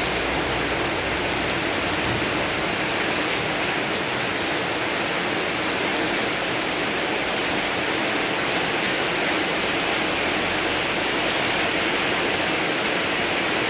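Heavy rain pouring onto a garden fish pond and the surrounding plants, a steady, unbroken hiss of drops splashing on water.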